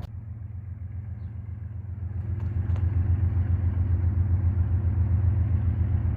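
Union Pacific 7963's diesel locomotive engine running with a low, steady drone that grows louder about two seconds in as the engine throttles up to get the stopped train moving again.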